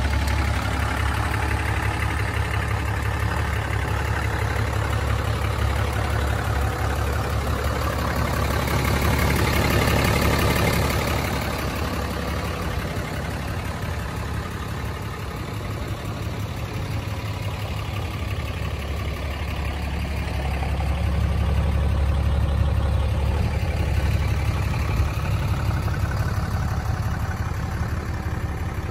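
Cummins 6.7-litre straight-six turbodiesel of a 2008 Dodge Ram 3500 idling steadily, with a constant low hum that swells louder twice.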